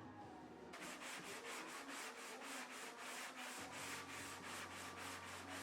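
Sandpaper being rubbed by hand over a guide-coated sheet-metal car door in a quick, even rhythm of strokes. The light straight-line sanding is knocking down the high spots on a wavy, flimsy panel. Background music fades out under a second in.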